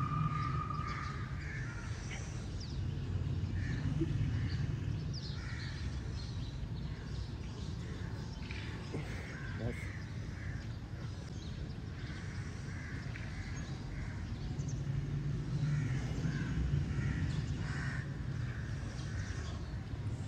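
Outdoor ambience of crows cawing again and again over a low, steady rumble.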